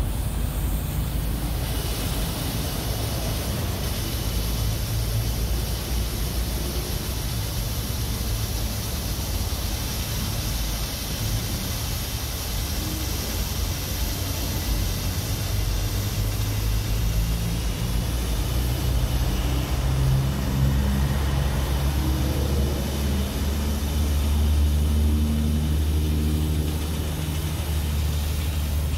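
Hot coolant steam hissing out of an overheated BMW E36's cooling system, over a steady low drone. The hiss comes in about a second and a half in, and the drone takes on a humming pitch in the second half.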